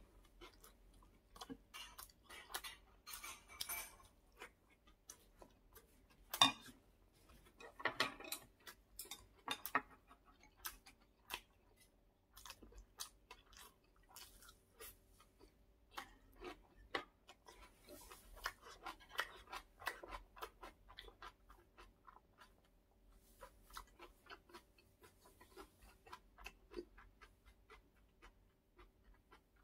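A person chewing food close to the microphone, with many small, irregular wet mouth clicks and crackles: a spoonful of rice, then kimchi. One sharp click about six seconds in is the loudest sound.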